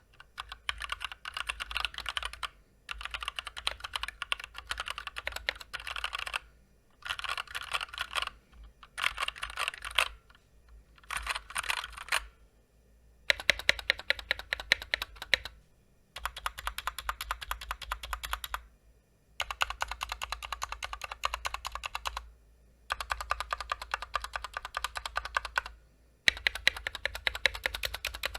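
Fast typing on a Drop (Massdrop) Ctrl High Profile mechanical keyboard with stock, unlubricated Gateron Clear linear switches, stock stabilizers and PBT double-shot keycaps. The keys clatter quickly in runs of two to three seconds, with short pauses between them. The keystrokes in the later runs are sharper and louder.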